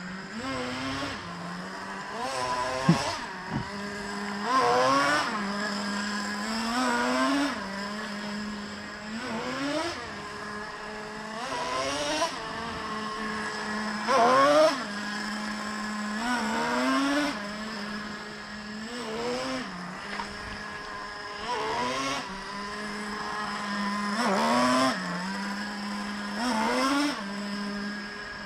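Traxxas Revo 3.3's small two-stroke nitro glow engine idling steadily, blipped on the throttle every two to three seconds, each blip rising in pitch and dropping back to idle. It is running in on its break-in tanks.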